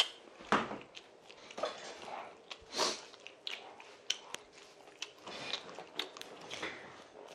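Scattered small knocks, clicks and rustles of a person handling a plastic water bottle and sitting down in a leather office chair, with the bottle set down on the table about four seconds in.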